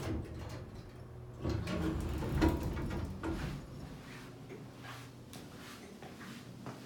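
Elevator car doors sliding open on a modernized traction elevator, with the door mechanism at its busiest about two seconds in, followed by light footsteps on a tile floor.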